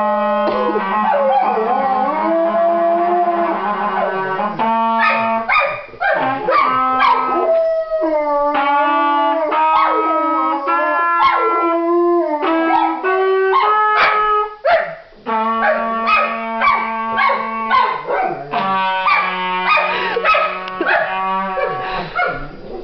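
A golden retriever howling along with a trumpet. The trumpet holds long steady notes while the dog's howls slide up and down in pitch around them.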